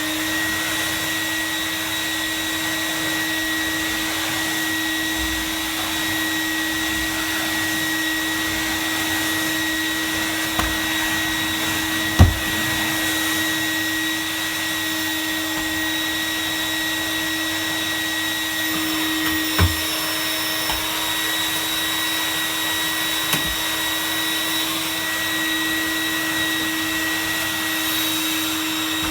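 Numatic WV370 wet/dry vacuum cleaner running steadily with a constant motor whine. Its spare motor, which the owner believes is about 31 years old, doesn't run too bad. There are a few short knocks, the loudest about twelve seconds in.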